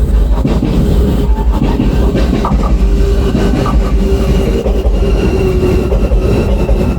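JR Shikoku 7200 series electric train passing close by: a loud, steady rumble of wheels running on the rails.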